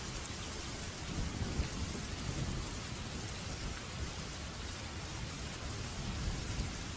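Steady rain hissing, with a low rumble of thunder underneath that swells about one to two and a half seconds in.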